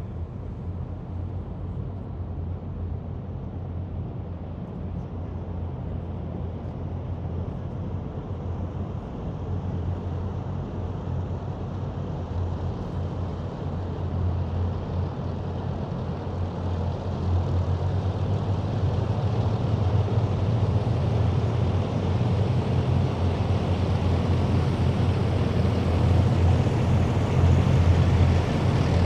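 Heavy military vehicles running in a column, a deep steady engine rumble with road noise that grows steadily louder as they approach.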